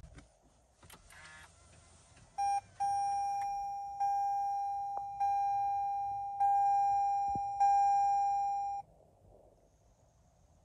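Warning chime from a 2021 Toyota Venza's instrument panel as the car is powered on. A click, then one short beep, then a ringing chime struck five times about a second apart that stops after about six seconds. No engine is heard.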